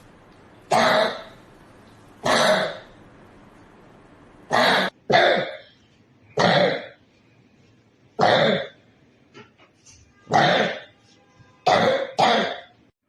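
A 13-year-old boy coughing, nine coughs in all. Most come singly a second or two apart, with two quick pairs. This is the persistent cough he has had for 54 days without relief.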